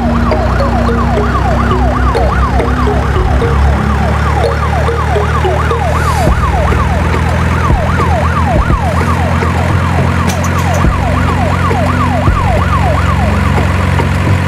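Electronic siren in a fast yelp, its pitch sweeping up and down about two to three times a second, over a steady low drone. The siren stops shortly before the end.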